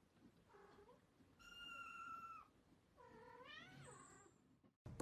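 Young kittens mewing: three faint, high-pitched mews, the middle one held for about a second and the last rising then falling.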